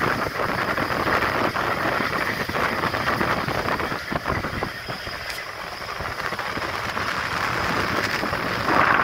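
Express train running on the track, heard from aboard: a steady rumble with irregular clatter and wind buffeting the microphone, easing a little about halfway through and building again near the end.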